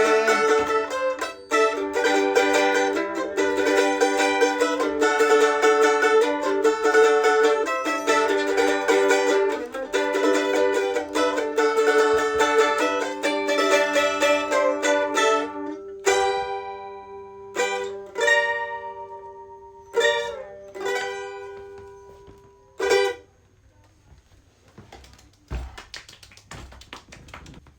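Mandolin playing fast picked notes, then from about sixteen seconds in a few single notes and chords that ring out and die away; the song ends a little over twenty seconds in, leaving near quiet.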